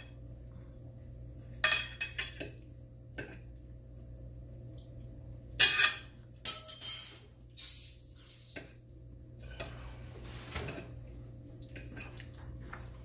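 Forks clinking and scraping against dinner plates in scattered short bursts, busiest around the middle.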